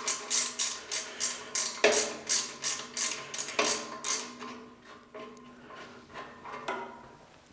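A wrench being worked on a 9/16 nut on a cast-metal band saw frame, most likely a ratcheting wrench backing the nut off. It makes a steady run of sharp metallic clicks, about three a second, each with a short ring, growing fainter and sparser after about four seconds as the nut comes loose.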